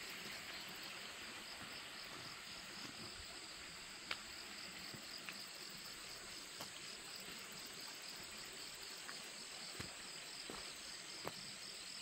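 A steady, high-pitched chorus of many grass insects singing together, with a few faint clicks.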